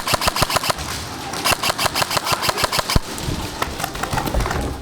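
Airsoft guns firing rapid strings of shots, about seven a second, in two bursts, ending in one sharp louder crack about three seconds in. A low rumbling noise follows.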